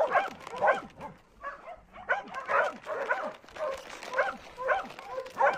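Dogs barking and yapping in quick, short calls, with a brief lull between about one and two seconds in.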